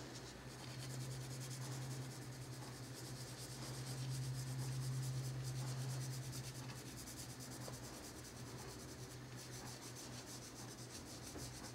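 Colored pencil rubbing lightly on paper in quick, repeated shading strokes, a little louder in the middle.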